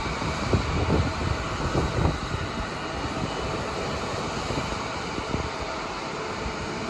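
Steady rumble and faint whine of distant jet airliner engines running at the airport. Gusts of wind buffet the microphone during the first two seconds.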